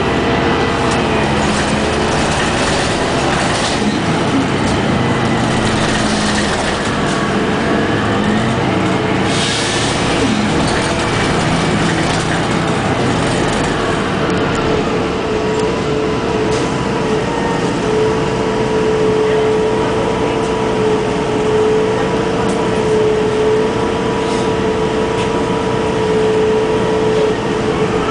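Inside a 2002 Orion VII CNG city bus under way, its Detroit Diesel Series 50G natural-gas engine and drivetrain whining with road noise. The whine rises and falls in pitch as the bus speeds up and slows, then holds a steady pitch through the second half.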